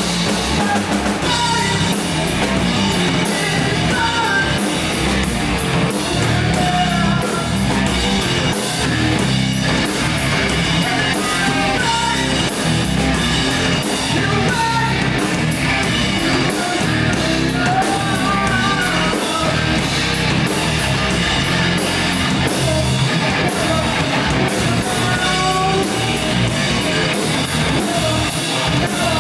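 Live heavy rock band playing loudly: two electric guitars, bass guitar and drum kit, with a lead vocalist singing into a microphone.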